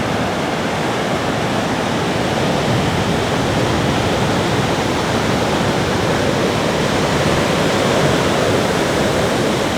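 Ocean surf breaking on a beach: a loud, steady rush of waves.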